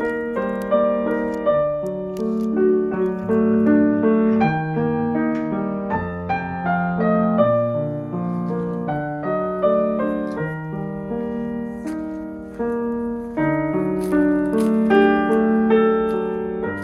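Background music: a piano playing a calm melody of sustained notes.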